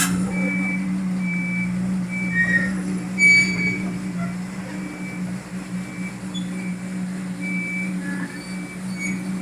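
A drilling rig's engine runs steadily with a low hum while a warning alarm gives short, high beeps at regular intervals. There is a brief louder noise about three seconds in.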